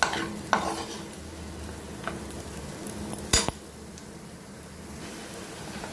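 Metal spoon stirring diced potatoes in a frying pan, clinking and scraping against the pan about four times, the loudest clink about three and a half seconds in.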